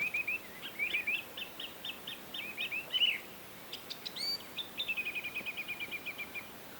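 Songbird singing: a run of quick chirps, a few higher whistled notes about four seconds in, then a fast, even trill near the end, over a faint outdoor hiss.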